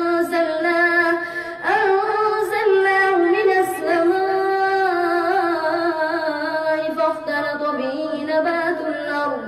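A boy's voice reciting the Quran in a melodic, drawn-out chant, holding long notes on the vowels, with a short breath about one and a half seconds in.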